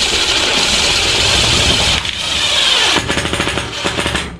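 Handheld power tool running flat out for about four seconds, with a rapid clatter in the last second before it cuts off suddenly.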